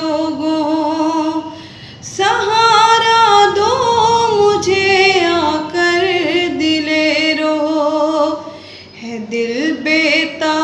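A young woman's solo voice singing a Urdu nauha (Muharram lament) unaccompanied, drawing out long held notes with vibrato. She breaks off briefly about two seconds in and again near the end.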